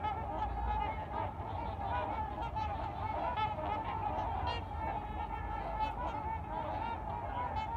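A large flock of trumpeter swans calling on the water: a dense chorus of many overlapping calls, with no break.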